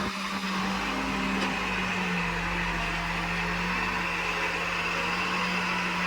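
Diesel engine of an Escorts Digmax backhoe loader running steadily, its hum dropping slightly in pitch about two seconds in.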